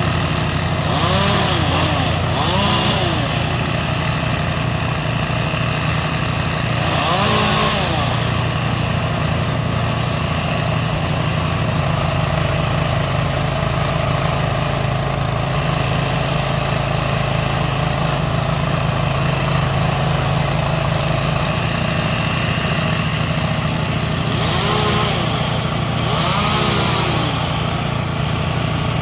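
Engine of the tree-trimming crew's equipment running steadily. A few brief surges rise and fall in pitch with a hiss: one about a second in, one partway through, and two near the end.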